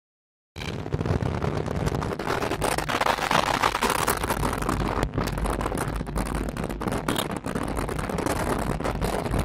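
Road noise of a moving car heard from inside the cabin: a steady low rumble of tyres and engine with rushing wind, broken by many short crackles. It starts abruptly about half a second in.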